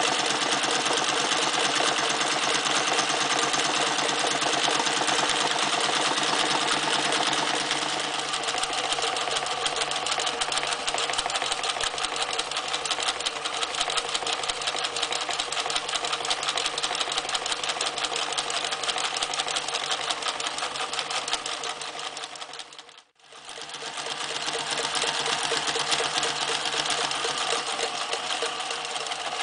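Reads 1209 electric zigzag sewing machine running steadily at speed, stitching through four layers of sailcloth with a fast, even run of needle strokes. A little over twenty seconds in the sound fades out briefly, then comes back as the machine stitches through four layers of leather.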